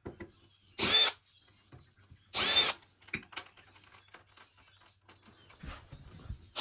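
Cordless electric screwdriver spinning in two short bursts about a second and a half apart, its motor whine rising briefly to speed each time as it backs screws out of the TV's back panel. Light clicks and taps of handling come between the bursts.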